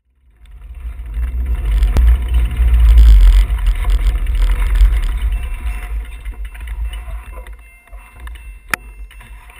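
Wind and road rumble on a bicycle-mounted GoPro in a waterproof case, muffled, as the bike rolls up to a stop: a heavy low rumble that swells, then fades as the bike slows. Two sharp clicks near the end.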